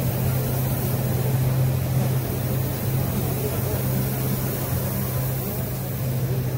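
Automatic CNC ball diamond-cutting machine running: a steady, even motor hum with no distinct knocks or changes.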